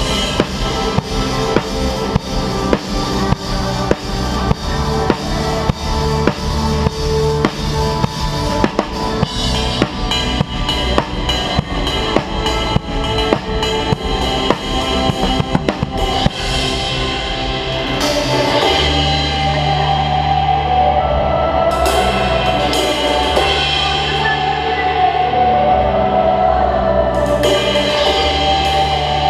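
Live band music driven by a drum kit: a steady beat of kick, snare and cymbals for about the first half. Then the drums drop out, leaving held low bass notes and chords, with a couple of cymbal crashes near the end.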